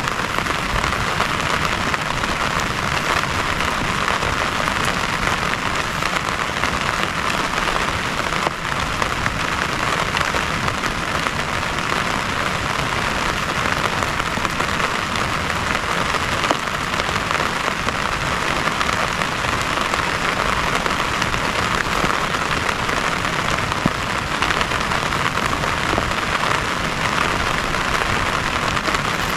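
Heavy rain falling steadily, with occasional sharper drop hits.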